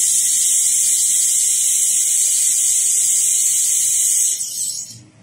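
Handheld fiber laser welder welding aluminum: a loud, steady high hiss that cuts back about four seconds in and dies away by about five seconds.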